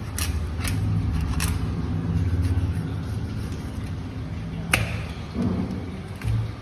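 Large knife cutting a red snapper fillet away from the bones on a wooden chopping block: a few sharp clicks and ticks, the sharpest nearly five seconds in, and a couple of short low thuds near the end, over a low steady rumble.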